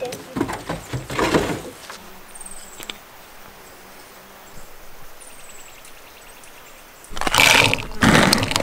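Quiet bush ambience with a few faint, high bird chirps and a faint rapid ticking, then a loud burst of noise about seven seconds in.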